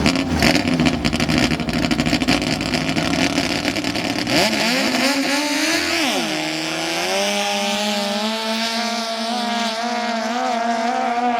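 Racing speedboat engine running loud and rough, then about four and a half seconds in its pitch sweeps up and drops before settling into a steady tone that climbs slowly.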